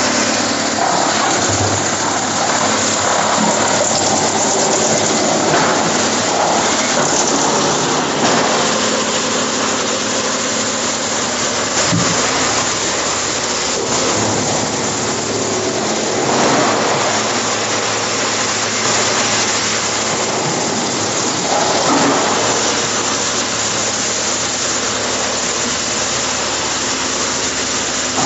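Rotexmaster wood chipper running and chipping wood: a loud, dense rushing noise over the machine's steady engine hum, swelling now and then.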